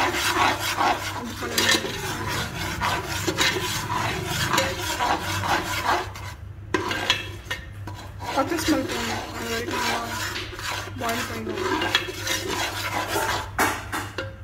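A utensil stirring and scraping food in a cooking pan in quick, irregular strokes, with a short pause about six seconds in and a sharper knock near the end.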